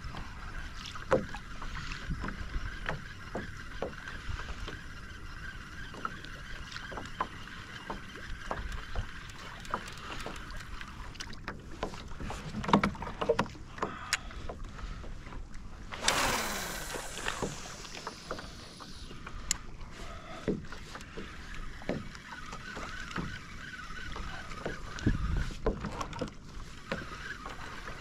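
Water lapping against a plastic fishing kayak's hull on open sea, with a steady faint hum, scattered small knocks and clicks, and one whoosh falling in pitch a little past halfway.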